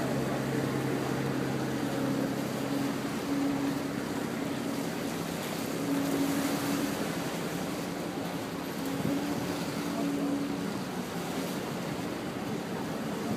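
A boat's engine running with a steady hum while water rushes past and wind blows on the microphone.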